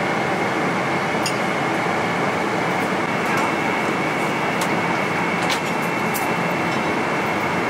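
Steady in-flight cabin noise of a Boeing 777-300ER airliner, an even rushing roar that holds at one level, with a faint high tone and a few light clinks scattered through it.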